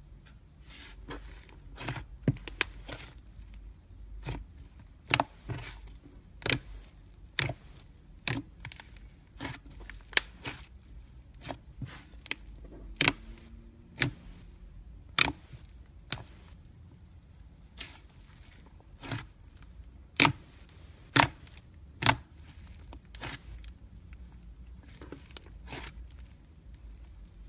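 Fishbowl slime being pressed and squeezed, giving sharp, separate pops and crackles, roughly one a second and irregularly spaced.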